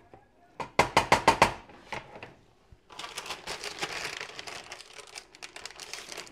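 A quick run of about six sharp clicks, then steady plastic crinkling as a bag of cheese is handled and opened.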